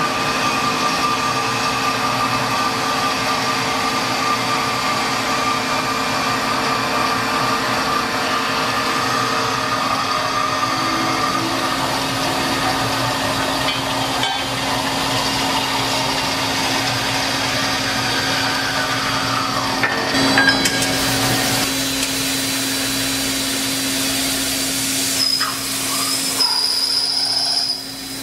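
CNC band saw blade cutting through a 100 × 100 × 10 mm steel angle, a steady machine hum with a whine. About twenty seconds in the sound changes, with a brief louder burst, and a higher whistle comes in near the end.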